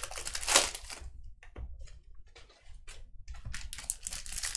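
Trading-card packs and cards being handled, with foil wrappers crinkling in a run of light clicks and rustles.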